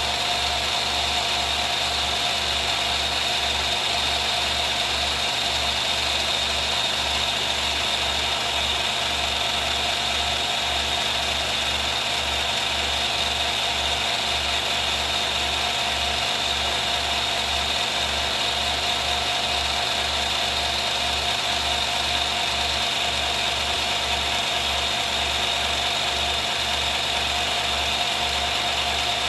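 Film projector running: a steady mechanical whir with a low, pulsing hum underneath.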